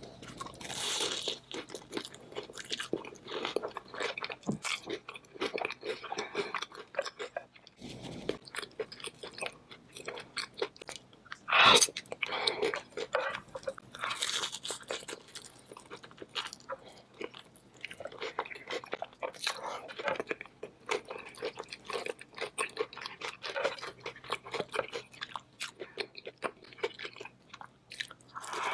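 Close-miked eating: crunching, biting and chewing of king crab legs coated in crushed Hot Cheetos and dipped in a creamy sauce, with irregular crackles and wet mouth sounds. One much louder crunch comes near the middle.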